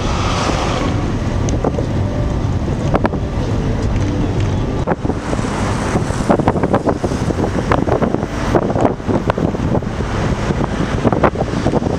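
Wind buffeting the microphone over a steady rushing noise, with many irregular crackles and knocks from about five seconds in.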